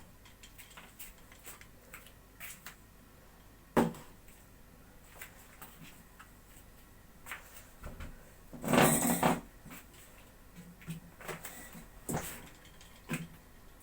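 Household handling sounds: scattered light clicks and knocks, one sharp knock about four seconds in, and a louder clatter lasting under a second about nine seconds in.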